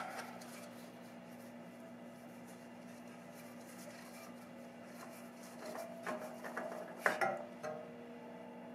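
Faint clinks and rubbing of a gloved hand unscrewing a freshly loosened motorcycle oil filter through the skid plate's opening, with a few louder metallic clicks about six to seven seconds in. A faint steady hum underneath.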